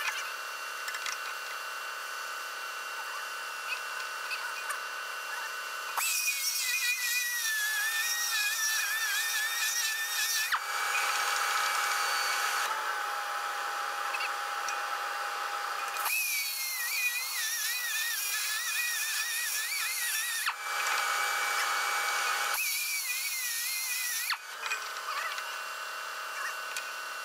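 Hand-held air-powered die grinder working steel on the skidder grapple's eyelet. It runs in three bursts, the first two several seconds long and the last shorter, with a high whine that wavers as the tool loads and unloads. A steady hum carries on between the bursts.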